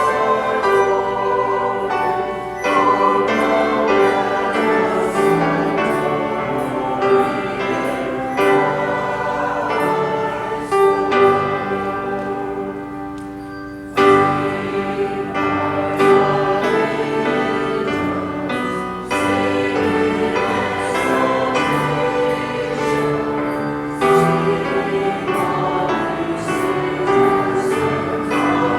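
Choir singing, sustained and full; about halfway through a phrase fades away and the singing comes back in sharply.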